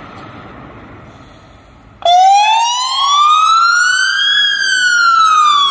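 Fire engine's engine running for about two seconds. Then its siren switches on suddenly and loudly, in a slow wail that climbs steadily in pitch and starts to fall again near the end.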